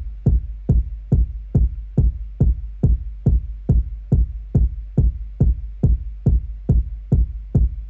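A layered electronic kick drum, pitched up, repeating on a steady loop of about two hits a second; each hit is a deep thump with a short click on top.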